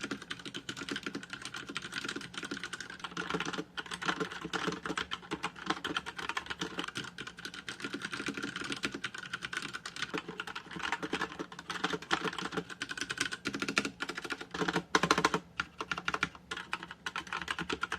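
Fast, continuous typing on a Motospeed CK101 mechanical keyboard with Outemu Red linear switches: a dense run of key clicks and bottom-outs, with a couple of brief breaks. The switches are called pretty clunky sounding.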